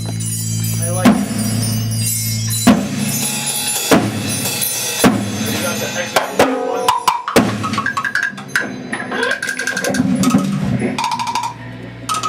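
A band playing music: drum-kit hits roughly once a second over sustained low chords, with busier melodic notes coming in about halfway through.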